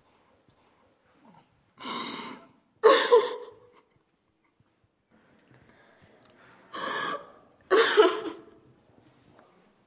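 A woman crying and sobbing: two sobs, each a sharp gasping intake of breath followed by a louder voiced, shaky outbreath.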